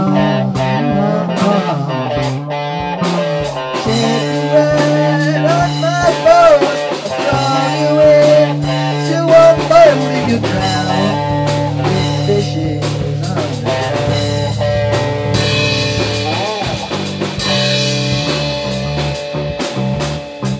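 Rock band jamming on electric guitars, bass and drum kit in a bluesy, psychedelic groove, with a lead guitar bending notes a few seconds in.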